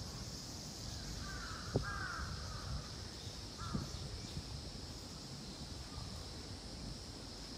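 Crows cawing a few times, a short run of calls about a second in and another near four seconds, over a steady high-pitched chorus of summer cicadas.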